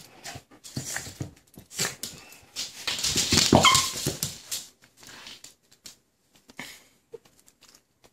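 Two dogs play-fighting: irregular scuffling and snuffling sounds, busiest and loudest in the middle, with a brief whimpering cry about three and a half seconds in, then dying down to a few small sounds.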